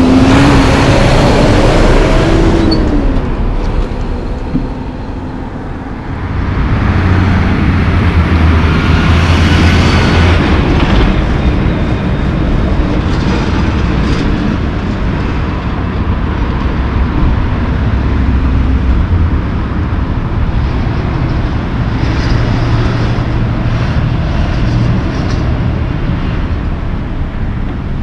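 Diesel engine of a Mack tractor-trailer passing close, its pitch rising and falling before it fades after about three seconds. A second heavy truck then goes by with a deep steady drone from about seven to eleven seconds, followed by steady road traffic.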